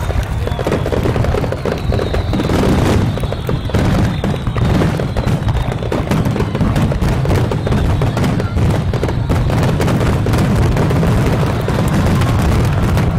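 Large aerial firework shells bursting in a dense, continuous barrage: overlapping booms and crackling reports over a steady deep rumble.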